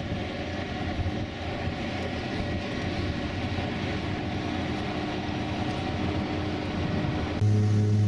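Steady drone of an aircraft engine running without letting up. Music comes in near the end.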